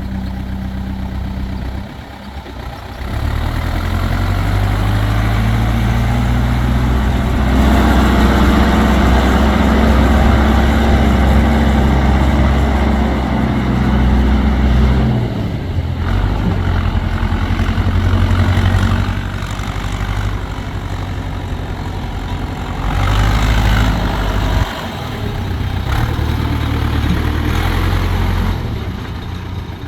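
Massey Ferguson 750 4x4 backhoe loader's diesel engine running, its revs raised about three seconds in and higher again around eight seconds, dropping back near fifteen seconds, and raised again for a few seconds around twenty-three seconds.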